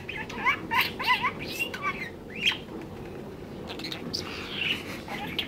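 A pet budgerigar and a cockatiel chirping and chattering: a run of short, quick up-and-down notes in the first two and a half seconds, then softer scattered chatter.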